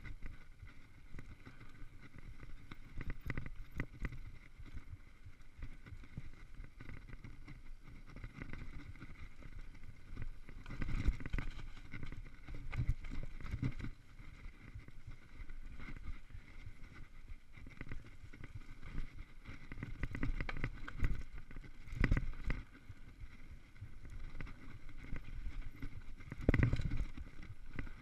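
Mountain bike riding down a rough dirt and rock singletrack: tyres rolling and crunching over the trail while the bike rattles and knocks over bumps, with several clusters of heavier jolts.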